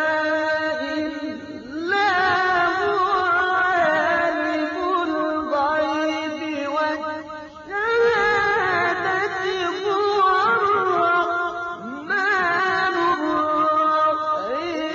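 A man's voice chanting the Quran in the melodic tajweed style: long held notes with ornamented, wavering turns of pitch. It comes in phrases broken by short pauses for breath about two, eight and twelve seconds in.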